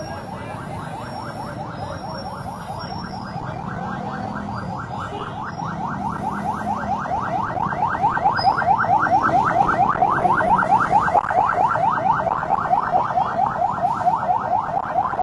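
Emergency vehicle siren sounding a rapid yelp of rising sweeps, about five a second, growing louder as it draws near: the rescue responders arriving.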